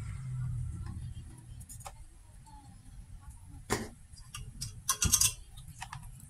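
Scattered small clicks and taps from tools and parts being handled during repair work, over a low steady hum. There is a sharp click about three and a half seconds in and a quick cluster of clicks about five seconds in, the loudest part.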